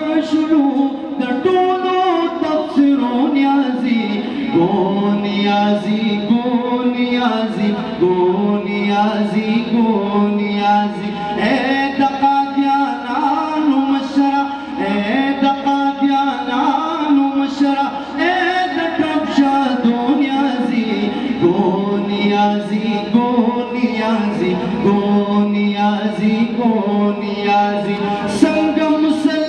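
A man singing a nazm, a sung Urdu devotional poem, into a microphone, amplified over loudspeakers, in long held, gliding melodic lines.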